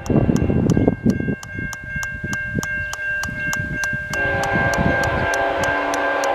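A level-crossing warning bell rings steadily at about four strokes a second, with a low rumbling noise in the first second or so. About four seconds in, the approaching freight train's lead locomotive starts a long multi-chime air-horn chord.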